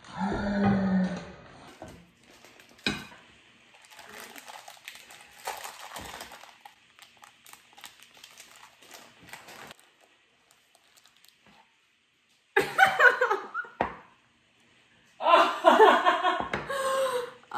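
Parchment paper rustling and crinkling as it is handled and peeled from a soft cheesecake on a ceramic plate, with a woman laughing in short bursts at the start and twice in the last few seconds.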